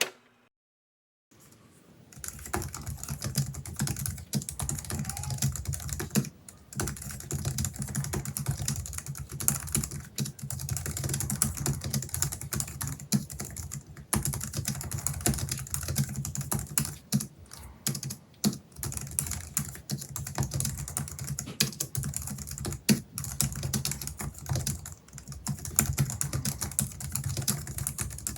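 Typing on a Logitech MX Keys Mini's low-profile scissor-switch keys, bare without a key skin: a steady, continuous patter of key presses that starts about two seconds in after a short silence, with a few brief pauses.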